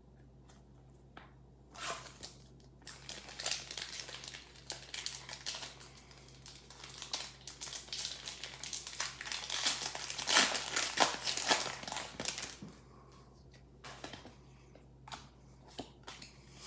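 Foil wrapper of a Pokémon trading-card booster pack crinkling as it is handled and opened, loudest a couple of seconds before it stops. It stops about three quarters of the way in, and a few soft clicks of the cards being handled follow near the end.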